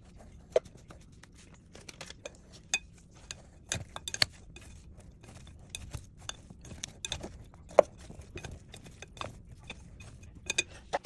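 Flour-coated chicken pieces being tossed and mixed in a bowl: irregular clinks and knocks against the bowl, a few sharper ones standing out.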